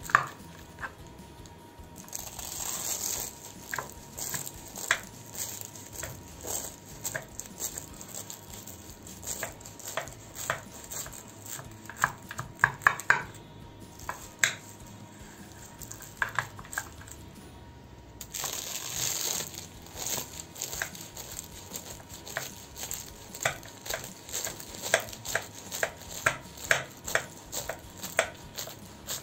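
Knife cutting through crisp baked börek of baklava phyllo layers: the dry, flaky pastry crackles and crunches in quick, irregular snaps. Twice, shortly after the start and again after about 18 seconds, there is a longer rasping crunch as the blade draws through.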